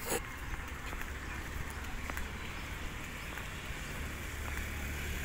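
Outdoor background noise: a steady low rumble that swells a little toward the end, with a short crackle of handling noise right at the start and a few faint ticks.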